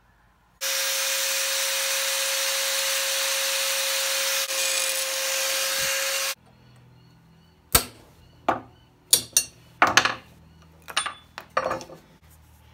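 A power tool runs at a steady speed with a steady pitch for about six seconds, then stops. After it comes a run of about a dozen sharp hammer strikes in quick clusters, knocking the old wooden handle off a vintage screwdriver clamped in a bench vise.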